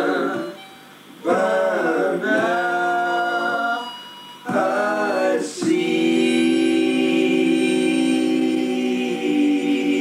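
Informal singing with a harmonica: short phrases with brief pauses, then a long chord held from about six seconds in.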